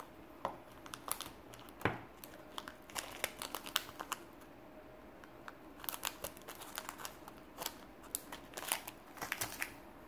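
Small clear plastic bag holding cables and screws crinkling as it is handled and lifted out of a small box, in clusters of quick crackles.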